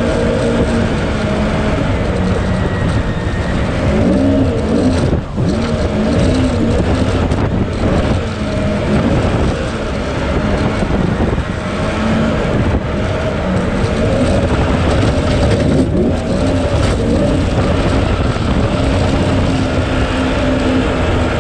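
Jet boat engine running at speed, its pitch rising and falling with the throttle and dipping briefly a few times, over a steady rush of water and wind.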